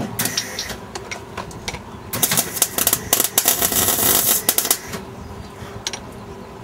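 Clicking and rattling of hand work inside a race car's stripped cabin, thickening into a dense clatter for a couple of seconds midway.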